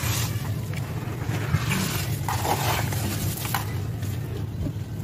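Wet sand-cement chunks being squeezed and crumbled by hand over a bowl of water. Several gritty, squishy crunches, the loudest about two seconds in, over a steady low rumble.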